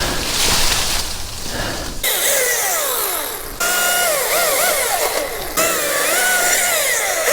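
Chainsaw revving and cutting, its pitch sliding down and swinging up and down again and again. This is preceded by about two seconds of rough rustling noise.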